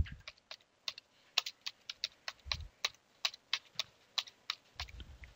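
Computer keyboard typing: a run of irregular key clicks, about four a second, with two brief low rumbles underneath.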